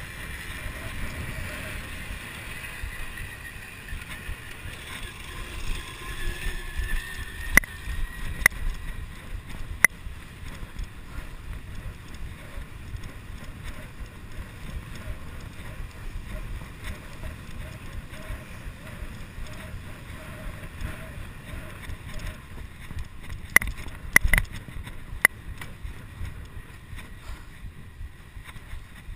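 Wind buffeting the microphone of a chest-mounted GoPro HD2 during a fast bicycle ride, over a steady low rumble of tyres on pavement. A few sharp clicks cut through, bunched around eight to ten seconds in and again around twenty-four seconds.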